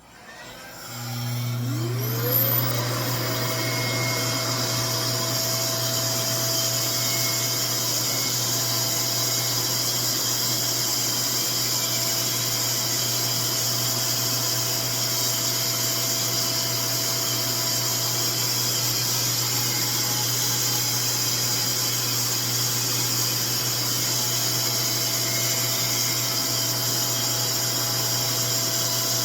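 RevAir suction hair dryer switching on about a second in, its motor whine rising as it spins up, then running steadily with a loud rush of air and a low hum.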